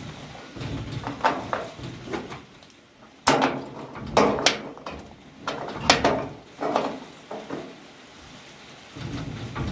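Metal handling noise: sheet steel knocking and scraping against a car body panel, with several sharp knocks. The loudest start about three seconds in and go on for the next few seconds.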